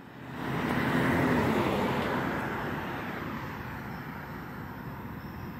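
A car driving past: its noise swells about a second in, then fades away over the next few seconds.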